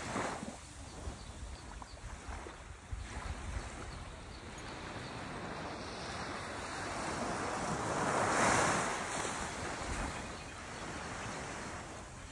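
Small, gentle waves washing onto a sandy beach, one swelling louder about eight seconds in, with some wind rumbling on the microphone.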